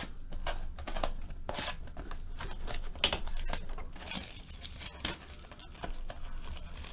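A shrink-wrapped cardboard trading-card box being handled: scattered taps and clicks of fingers on the box, with the plastic wrap rustling, most steadily about four seconds in.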